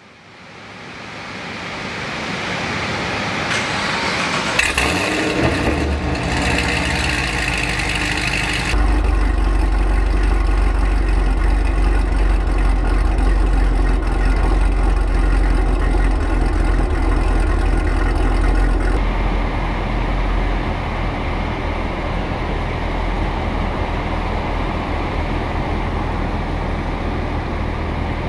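Chevrolet Camaro ZL1's supercharged LSA V8 idling steadily, with a deep exhaust note. The low rumble comes in strong about nine seconds in and keeps an even tone after that.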